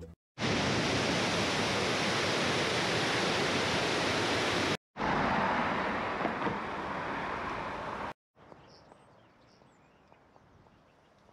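Loud, steady outdoor rushing noise beside a road, in two sections that each cut off suddenly. It then drops to faint, quiet outdoor ambience with a few tiny high chirps.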